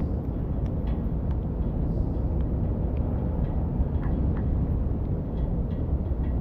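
Rainy city street ambience: a steady low rumble with scattered drips of rain ticking now and then.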